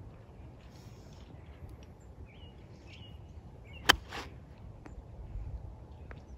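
A golf iron strikes the ball once, a single sharp click about four seconds in, followed by a brief swish through the turf. Birds chirp faintly in the background.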